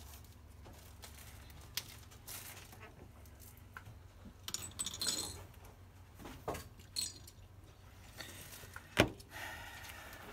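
Small metallic clinks, taps and a short jingle of tools and parts being handled on a repair bench, over a low steady hum, with one sharper knock about nine seconds in.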